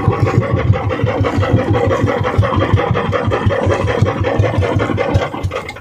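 Outrigger fishing boat's engine running steadily with a rapid low thudding, then cutting off right at the end.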